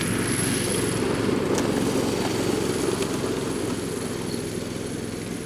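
Small petrol engine running at a steady speed, slowly getting quieter toward the end.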